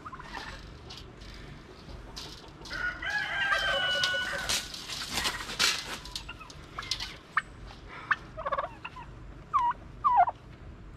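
Poultry calling: one long call with a steady pitch about three seconds in, shorter calls later, and two quick falling squawks near the end, over scattered knocks and rustling.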